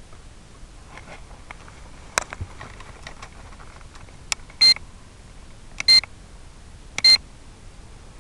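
Three short, loud, high-pitched electronic beeps a little over a second apart, coming after a few faint clicks.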